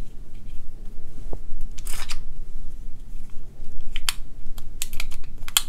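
Sig Sauer 1911-22 pistol being handled: a short metallic clack about two seconds in as the locked-back slide goes forward, then a quick run of sharp clicks near the end.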